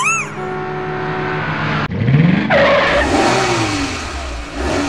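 Cartoon car sound effect: an engine revs up in a rising pitch, then speeds away in a loud rush of noise with falling pitch, ending abruptly. It plays over background music, with a short chirp at the start.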